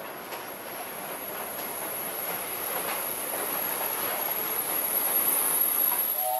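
Steam-hauled train rolling past along a station platform: wheels running on the rails with faint clicks, over a thin steady high whine, growing steadily louder as it comes closer.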